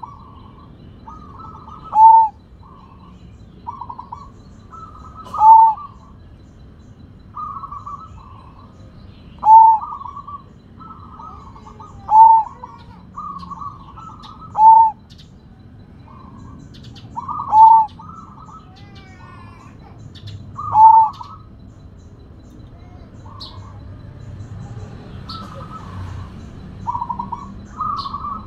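Zebra dove singing its cooing song: phrases of soft notes, each ending in one loud coo, repeating about every three seconds, seven times. In the last several seconds only the softer notes come.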